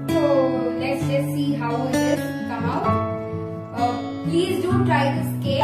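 Background music: acoustic guitar strumming chords, with a melody line above it.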